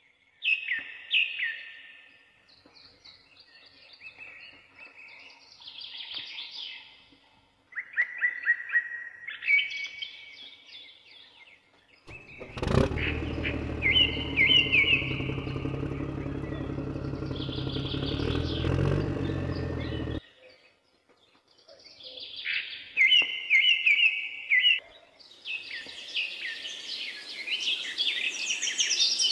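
Small birds chirping and twittering. About twelve seconds in, a steady motor starts running suddenly and cuts off about eight seconds later, after which the chirping carries on.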